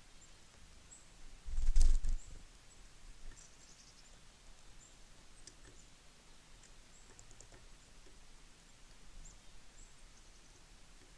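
Small birds at a winter feeder giving short, high chirps scattered throughout. A loud, low thump comes about a second and a half in.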